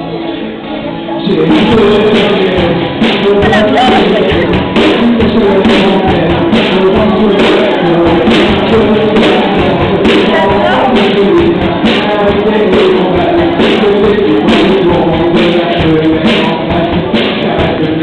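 Live band music: a drum kit with cymbals comes in over strummed guitar about a second in and keeps a steady beat, with a voice singing over it.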